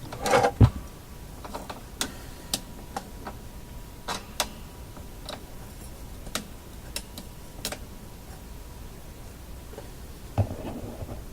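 Irregular light clicks and taps, about one a second, from test leads, clips and a meter being handled on a workbench, with a louder knock about half a second in.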